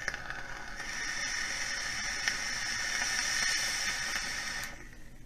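An OBS Engine RTA atomizer's single Clapton coil sizzling, with air hissing through the deck, as a long drag is taken on the vape at about 40 watts. The hiss dips briefly about a second in, then runs steadily and stops suddenly near the end.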